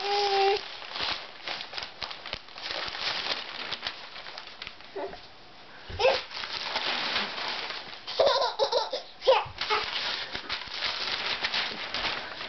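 Newspaper rustling and crinkling as a toddler tosses and scatters the sheets. The toddler's voice is heard briefly at the start and again in a short laugh about eight seconds in.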